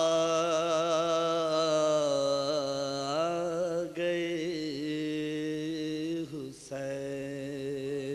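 A man singing an Urdu qaseeda with no accompaniment, drawing out long held notes with a slight waver. The phrase breaks off briefly about four seconds in and again about six and a half seconds in.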